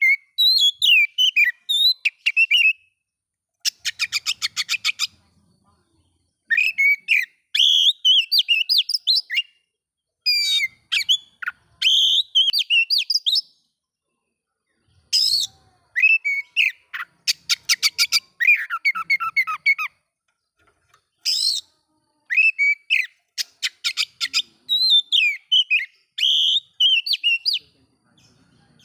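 Oriental magpie-robin (kacer) singing loudly: phrases of whistled, gliding notes and fast trains of repeated chattering notes, broken by short pauses. This is the kind of aggressive song used to provoke other male magpie-robins.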